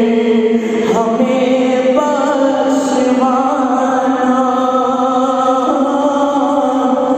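Male voice chanting an Urdu devotional salaam in a slow, melodic style, holding long drawn-out notes that step from one pitch to the next.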